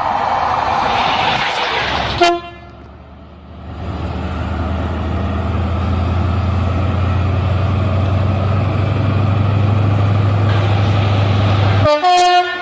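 Train horn sounding two short single-note blasts, one about two seconds in and one near the end. Before the first blast there is a loud rushing noise, and between the blasts a steady low engine drone.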